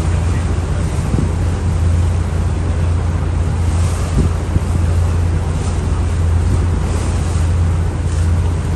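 Boat running at speed: a steady low engine drone with water rushing along the hull and wind buffeting the microphone.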